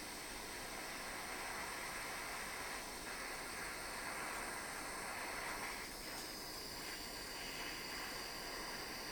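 Soldering torch flame hissing steadily while heating a brass ring's seam to flow the solder.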